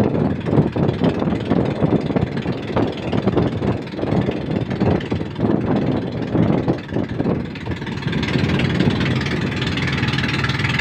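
Engine of a motorized bangka outrigger boat running while underway, under an uneven rushing noise that settles into a steadier drone about eight seconds in.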